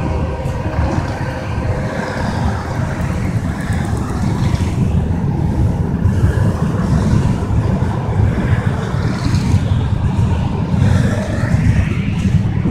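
Freight train of gondola cars rolling past, with a steady low rumble of wheels on the rails.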